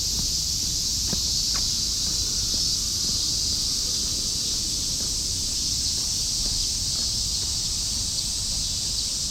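A dense chorus of summer cicadas shrilling steadily as one continuous high hiss, with a low rumble underneath.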